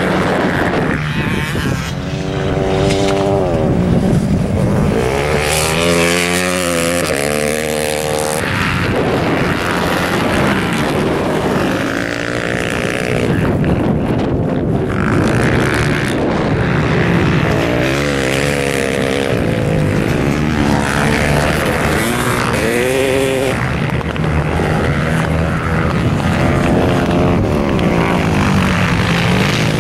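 Dirt bike engines revving hard, the pitch climbing and dropping again and again as the riders accelerate, shift and back off.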